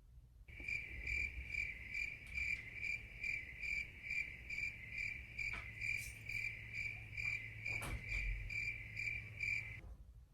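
Cricket chirping sound effect: a steady, high-pitched chirp repeating about two to three times a second, starting and cutting off abruptly. A couple of faint knocks sound under it, one near the middle and one toward the end.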